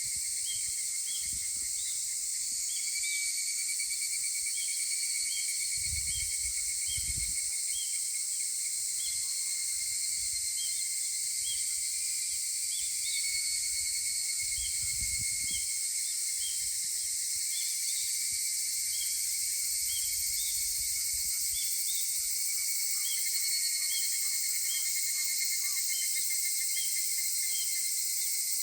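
Chorus of higurashi cicadas (Tanna japonensis) calling, overlapping into a steady high-pitched ringing, with a run of short repeated chirps over it. A few faint low thumps come and go.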